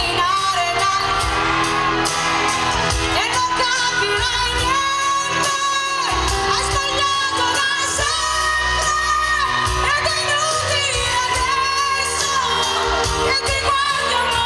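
Live pop song played by a band, with a female lead singer holding long notes that bend in pitch, recorded from among the audience.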